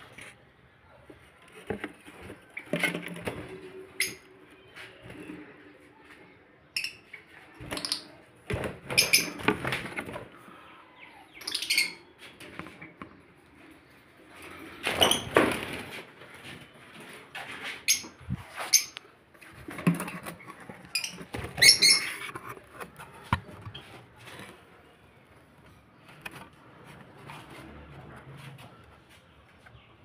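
Lovebirds chirping in short calls among bursts of wing flapping, rustling and knocks, coming irregularly; quieter over the last several seconds.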